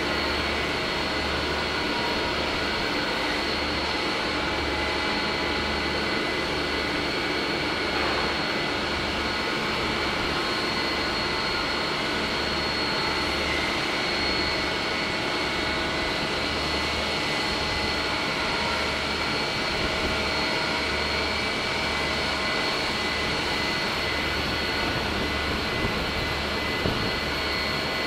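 Oxy-fuel cutting torch burning with a steady roaring hiss while it heats and cuts a steel flat bar, throwing sparks.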